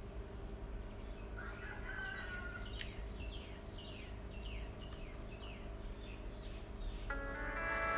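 A bird chirping in a quick run of short, falling calls, about three a second, over a low steady hum. Music with chime-like tones comes in near the end.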